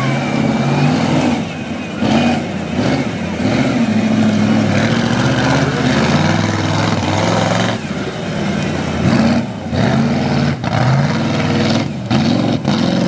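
Lifted Chevy Blazer's engine revving up and down over and over as the truck works through a mud and obstacle course, its pitch rising and falling every second or so.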